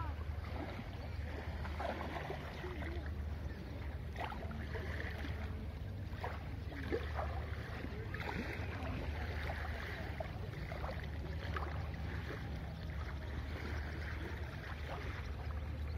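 Calm sea lapping gently at a sandy shore, over a steady low rumble.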